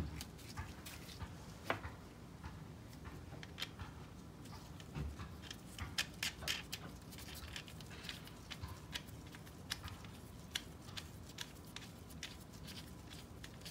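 Irregular light clicks and taps of a hand saw being reassembled: the steel blade and saw bolts knocking against the wooden handle, and the bolt nut being turned by gloved fingers. The taps come most thickly about halfway through.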